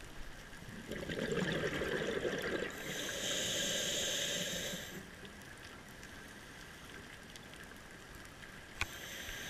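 Scuba diver breathing through a regulator underwater: a low bubbling rush about a second in, followed at once by a high hiss lasting about two seconds, then a quiet stretch and another hiss starting near the end.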